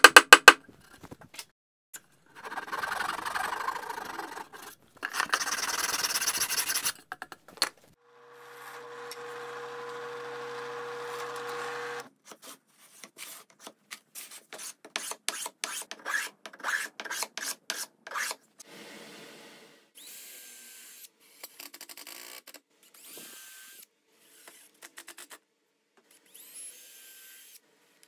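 Wood being worked by hand tools in several separate spells of rubbing and rasping strokes. In the middle, a steady machine hum with a steady tone runs for about four seconds, followed by a long run of short strokes that grow fainter, with a few brief squeaks near the end.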